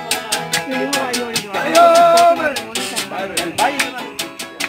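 Live guitar trio playing a paseo: acoustic guitars over a steady, even maraca shake, with a singer holding one long note about two seconds in.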